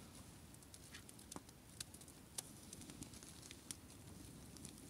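Near silence, with a small campfire crackling faintly in sparse, irregular ticks.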